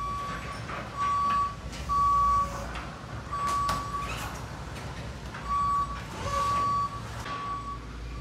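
Forklift backup alarm beeping. It gives single beeps of about half a second at uneven intervals, with a few brief clatters in between.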